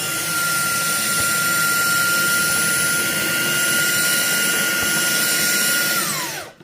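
A small high-speed electric motor runs with a steady high whine and a rushing hiss, then winds down, falling in pitch about six seconds in.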